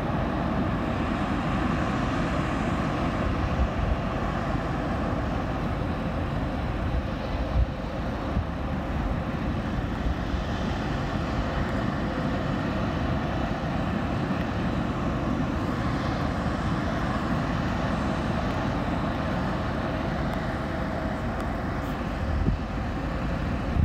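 Steady rushing background noise with a faint hum through it, unchanging throughout.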